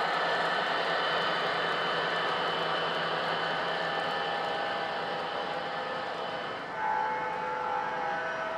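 O-gauge model diesel locomotives running with their onboard sound systems: a steady diesel engine rumble with the rolling of wheels on the track. About 7 seconds in, a locomotive horn sounds in several short blasts.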